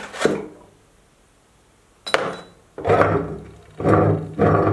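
Metal meat grinder being taken apart by hand: a clink as the perforated plate comes away, a sharp click about two seconds in, then the blade and screw auger scraping and knocking against the inside of the barrel in a few grating strokes as they are pulled out.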